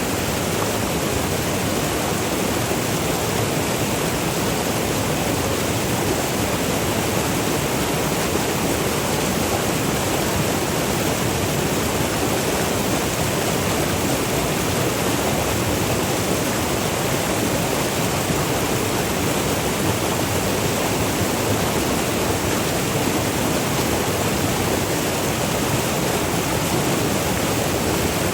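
River water rushing over small waterfalls, a steady even rush with no breaks.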